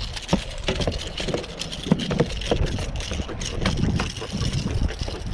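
Irregular knocks and taps as a small giant trevally flaps and is handled against a boat's hatch lid while being unhooked, over wind on the microphone.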